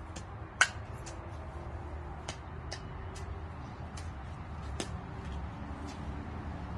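A sharp plastic click about half a second in as a toy plastic golf club strikes a small plastic ball. Fainter scattered ticks follow over a steady low rumble.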